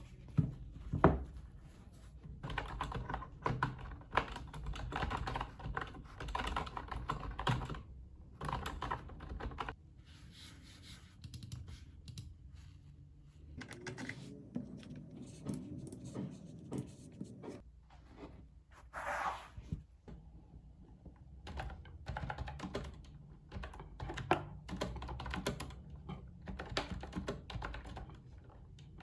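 Typing on a computer keyboard: runs of rapid key clicks in bursts with short pauses between, with two sharper, louder knocks about a second in.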